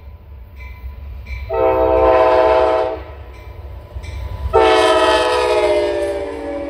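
Air horn of an Amtrak GE Genesis diesel locomotive sounding for a grade crossing: a blast of about a second and a half, then a longer blast whose chord drops slightly in pitch as the locomotive passes close by. Beneath it, the low rumble of the passing diesel locomotives.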